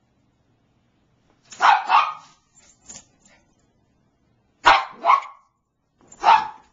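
Bichon Frise barking in short barks, begging for its squeaky toy to be thrown. It barks twice in quick succession, twice again a few seconds later, then once more near the end.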